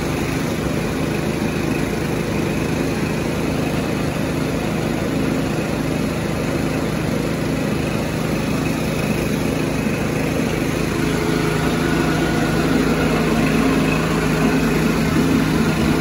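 The Mighty Mite portable sawmill's Volkswagen-derived gas engine running steadily.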